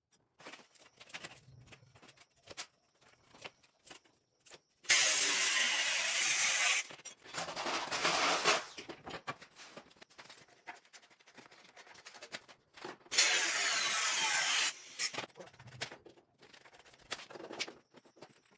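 A metalworking power tool working on car body sheet metal in two short bursts of hissing, abrasive noise, each about two seconds long, with scattered clicks and taps between them.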